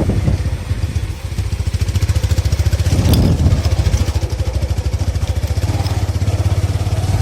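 A vehicle engine running steadily with a fast low pulse, with a brief clatter about three seconds in.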